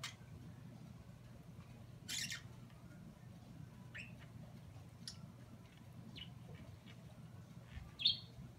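Budgerigar giving short, scattered chirps and squawks, the loudest about eight seconds in, over a faint steady low hum.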